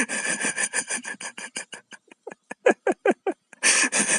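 An animal making a rapid series of short, noisy, hiss-like sounds, about seven a second, a few of them with a falling pitch in the middle.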